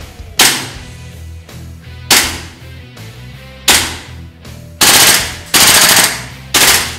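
WE SCAR-L open-bolt gas blowback airsoft rifle firing on green gas: three single shots spaced more than a second apart, each ringing out briefly, then about five seconds in, three short full-auto bursts with the bolt cycling rapidly.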